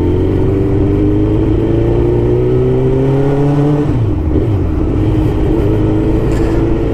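Suzuki GSX-R1000 K2's inline-four engine under way, its pitch rising slowly as the bike pulls for about four seconds. It dips briefly, then runs steady.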